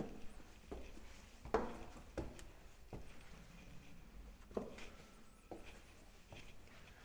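Footsteps on stone stairs: about nine irregular steps, roughly one a second, some coming closer together.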